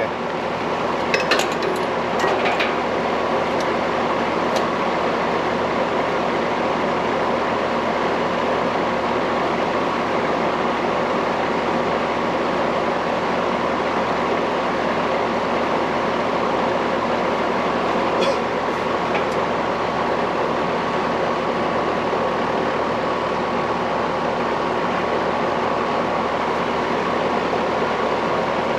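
Steady mechanical running noise with a faint hum, unchanging throughout, with a few light clicks about two seconds in and again about two-thirds of the way through.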